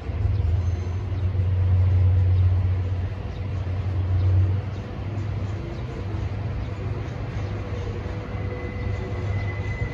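DF200 diesel-electric freight locomotive approaching slowly with empty cement wagons, its diesel engines giving a steady low drone, loudest in the first half. A thin high squeal joins near the end.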